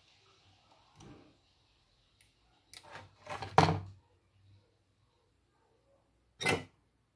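Short knocks and rattles of things being handled on a workbench. The loudest is a cluster about three to four seconds in, with a softer knock about a second in and another brief one near the end.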